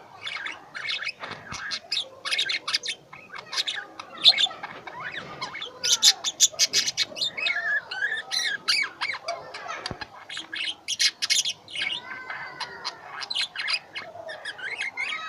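Pet lovebirds chattering: a steady run of rapid, shrill chirps and squawks, with a few sliding whistled calls among them.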